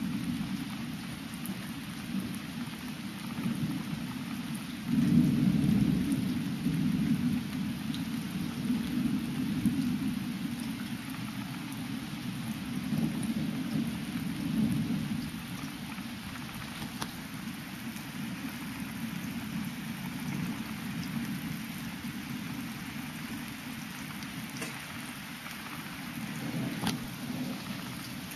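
Thunder rumbling over steady rain. A louder roll of thunder breaks in sharply about five seconds in and dies away over the next ten seconds, and a smaller swell comes near the end.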